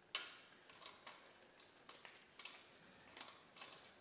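A steel drill bit, shank end down, turned and shifted by hand in the cast-iron head bolt holes of a Model T Ford engine block: a handful of faint metal clicks and scrapes, the sharpest just as it begins. The bit is breaking up debris packed in the bottoms of the holes.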